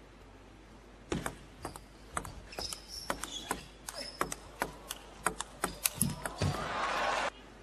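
Table tennis rally: the plastic ball clicking sharply off rackets and table, about twenty quick hits over some five seconds, with a few short high squeaks of shoes on the court floor. As the point ends, a louder burst of noise lasts about a second and then cuts off.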